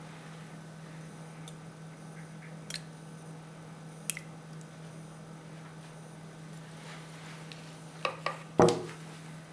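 Eggs being cracked and tipped from a small cup into a glass mixing bowl: a few sharp taps and clinks, then three knocks close together near the end, the last the loudest. A steady low hum runs underneath.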